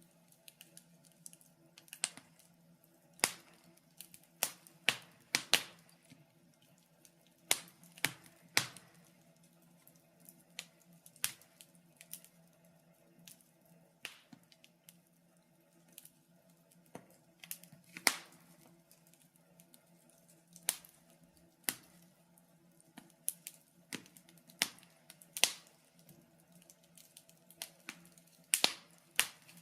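Wood fire crackling in a fireplace: irregular sharp pops, spaced a second to a few seconds apart and sometimes in quick pairs or clusters, over a faint steady low hum.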